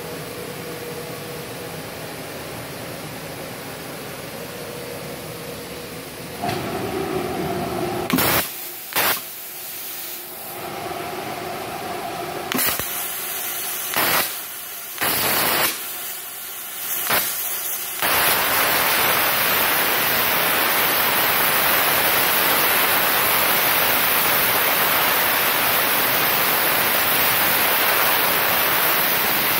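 MultiPro CUT 120 G-TY plasma cutter set to 85 amps. A steady machine hum comes first; then, from about 8 seconds in, the torch fires in several short hissing bursts. About 18 seconds in it settles into a steady loud hiss: the plasma arc cutting through 6 mm steel plate.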